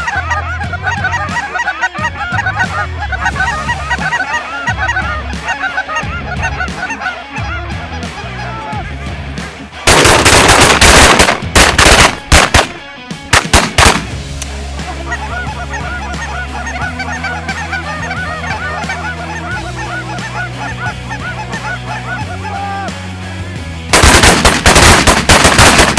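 A large flock of cackling geese calling overhead, many high yelping calls overlapping. About ten seconds in, a rapid volley of shotgun fire from several guns runs for about four seconds, and another volley comes near the end.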